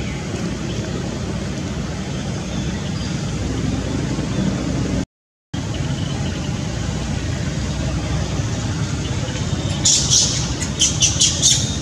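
Steady outdoor rumble and hiss, cut off for about half a second around five seconds in. Near the end a quick run of six or seven short, shrill squeals, which fit a baby macaque crying at its mother.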